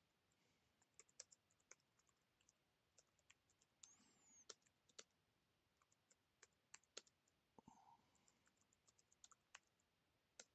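Faint computer keyboard typing: irregular keystroke clicks in short runs with pauses between them.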